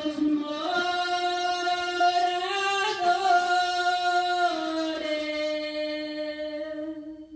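A woman singing a Spanish Christmas praise song unaccompanied, one long phrase of held notes that step slowly up and down, fading out near the end.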